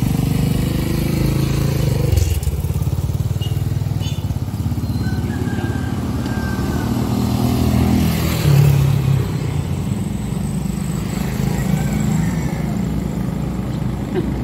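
A motor vehicle engine idling with a steady low rumble.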